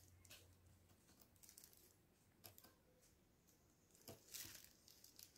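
Near silence, with a few faint scrapes and ticks of a thin pry tool working a ribbon cable out of its clip on a tablet's circuit board, the clearest about two and a half seconds in and a small cluster around four seconds in.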